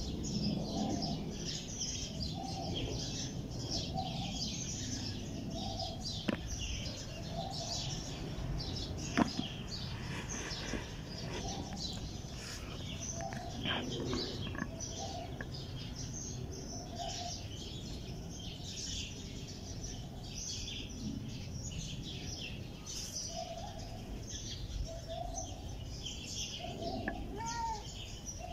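Small birds chirping continuously, with a lower short call repeating about once a second, over a steady low rumble; two sharp clicks about six and nine seconds in.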